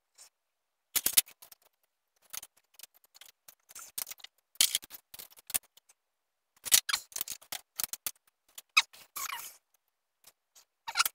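Irregular metallic clicks, clinks and small knocks of engine parts being handled: the gearbox shafts and gears in the open crankcase of a Honda CR250R two-stroke engine being fitted by hand.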